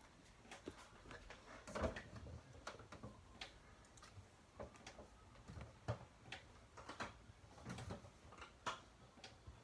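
Faint scattered knocks and clicks from someone climbing barefoot onto a kitchen counter and moving about on it, with one louder bump about two seconds in.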